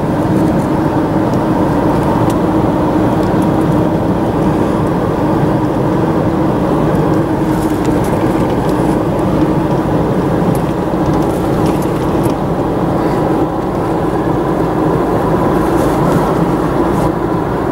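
Car cruising on a paved road, heard from inside the cabin: steady engine and tyre noise with a constant low drone.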